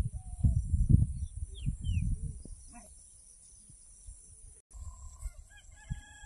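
Rural outdoor ambience. A steady high-pitched insect drone runs throughout, with low rumbling noise that fades out about two and a half seconds in. Scattered bird chirps come through, with a brief burst of chirping calls near the end.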